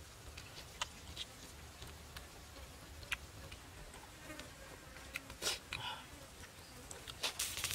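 Scattered sharp clicks and pops over a faint steady buzz of insects, with a couple of louder short bursts about five and a half seconds in.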